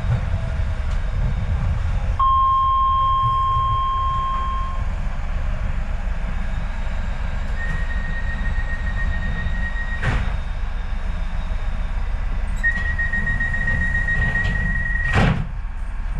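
Docklands Light Railway train standing at a station with a steady low rumble, a held electronic tone about two seconds in, then two spells of rapid door-warning beeping, each ending in a sharp knock. The doors shut with a thump near the end, after which the sound is a little quieter.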